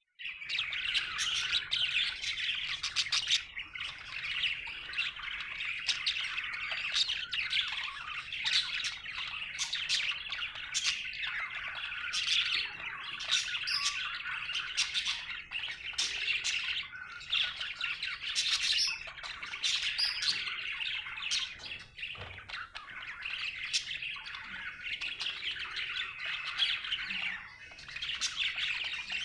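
Budgie (budgerigar) chattering and warbling continuously, a busy stream of chirps, squawks and sharp clicks, the contented chatter of a happy budgie.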